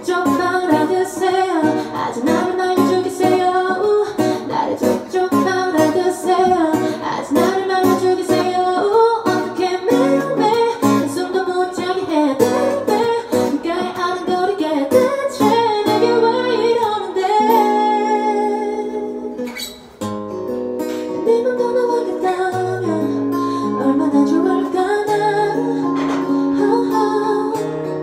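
A woman sings into a microphone, accompanied by a strummed acoustic guitar. After about sixteen seconds the strumming gives way to longer held notes, with a brief drop in loudness a few seconds later.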